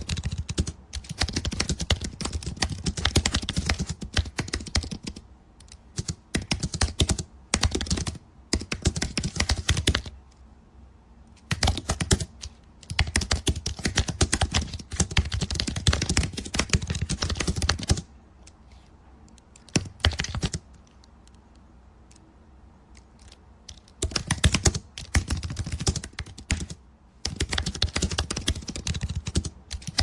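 Fast typing on a computer keyboard: rapid runs of key clicks in bursts of a few seconds, broken by short pauses and one longer pause of a few seconds.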